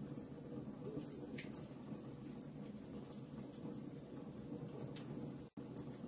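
Wood fire of burning logs crackling, with irregular sharp pops over a steady low hiss and rumble of the flames. The sound cuts out for an instant about five and a half seconds in.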